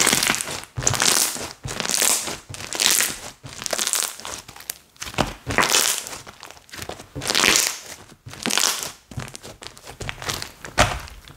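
Slime, left unused for a long time, being squeezed and pressed by hand, making crackly, crinkling squishes in repeated pushes about once a second.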